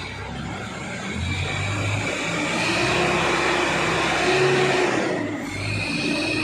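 A machine running with a steady high whine over a dense noise, growing louder over the first three seconds and dipping briefly about five seconds in.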